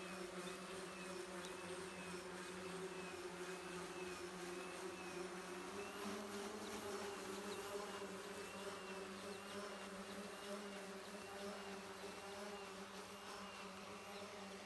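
Electric motors and propellers of the Levitator 6, a home-built spinning-wing electric aircraft, in flight: a steady buzzing hum with a high tone that wavers up and down in a regular rhythm. The hum rises slightly in pitch about six seconds in and fades a little near the end.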